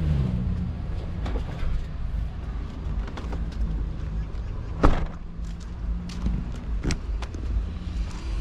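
Motor vehicle running, a steady low rumble, with a few sharp clicks or knocks; the loudest comes about five seconds in.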